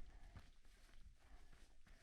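Faint footsteps of a hiker walking on a mountain trail, about three steps.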